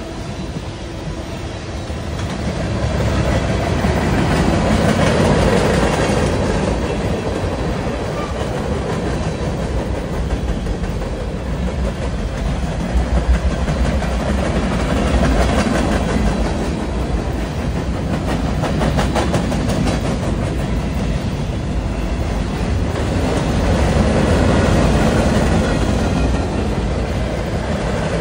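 Freight train cars rolling past: a steady rumble of steel wheels on the rails, swelling louder a few seconds in and again near the end, with a run of rapid clicking from the wheels over the rail joints around the middle.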